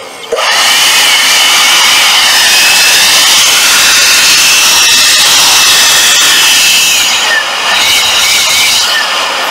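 Makita 14.4 V cordless blower running at full power: a loud, steady rush of air over a high, slightly wavering motor whine. It comes up to speed about a third of a second in, dips briefly about seven seconds in and winds down near the end.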